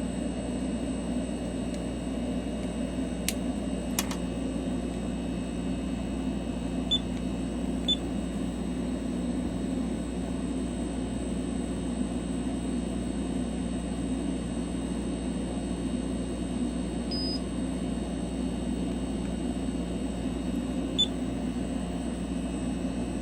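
Steady low mechanical drone of a running fan or motor, with a couple of sharp clicks a few seconds in and a few tiny high blips.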